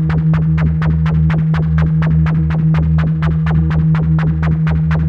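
Make Noise modular synthesizer patch sounding: a steady low drone under a fast, even pulse of about eight clicks a second. A cycling function routed through the Jumbler modulates the Spectraphon's partials, so its overtones shift.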